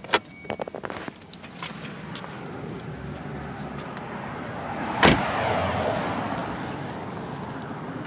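Light metallic jingling and clicks in the first second or so, then about five seconds in a single loud thud as a car door is slammed shut. Steady street traffic noise runs underneath.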